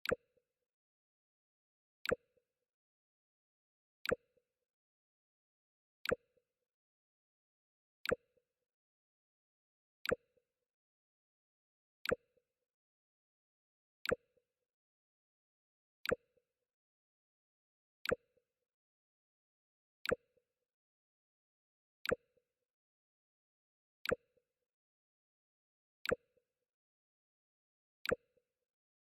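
The Mac OS X 'Jump' sound effect: a short, sharp pop with a brief low tail, repeated every two seconds.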